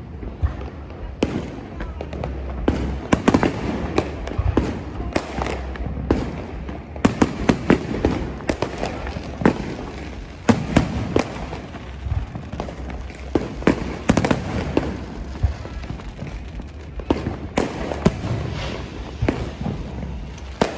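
New Year fireworks going off: a dense, irregular run of sharp bangs and crackling pops, several a second at times, over the noise of a crowd.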